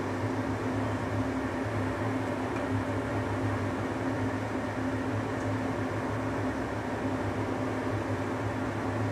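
Steady low mechanical hum under an even hiss, unchanging throughout.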